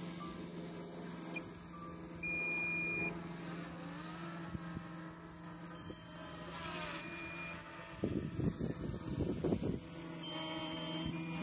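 A steady, engine-like low hum made of several level tones. About eight seconds in, a couple of seconds of louder irregular rustling or buffeting noise sit on top of it.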